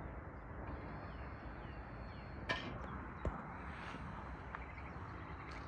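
Outdoor ambience at a quiet level crossing: small birds chirping over a low steady rumble, with a sharp click about two and a half seconds in and a softer knock just after.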